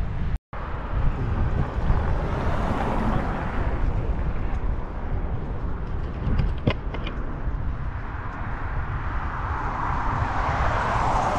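Wind rumbling on the microphone of a camera on a moving bicycle, with road traffic alongside and a broad swell of noise near the end. The sound cuts out completely for a moment just under half a second in, and there are a few sharp clicks around seven seconds.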